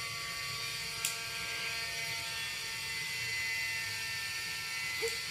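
Steady electrical hum with many thin tones, with one sharp click about a second in.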